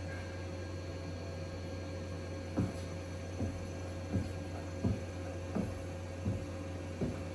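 Steady electrical mains hum with a faint high steady tone. From about two and a half seconds in, seven soft short knocks come at an even pace of a little more than one a second.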